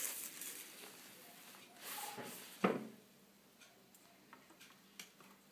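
Handling sounds as a vinyl record is set on a portable record player: soft rustling, one sharp knock a little past two and a half seconds in, then a few light clicks.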